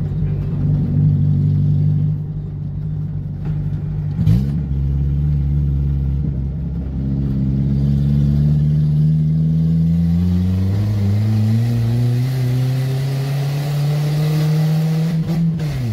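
Car engine accelerating through the gears: its pitch climbs steadily, then drops at each gear change, about a quarter of the way in, about two-thirds in, and just before the end.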